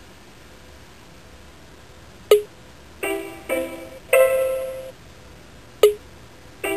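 Short musical jingle from the Star7 prototype handheld: a sharp click, then three pitched notes, the last held longest. It begins a little over two seconds in and starts again near the end.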